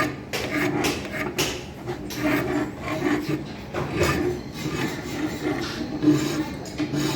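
Hand file rasping back and forth across the edge of a mild steel workpiece held in a vise, in a steady run of strokes: deburring the sharp edges.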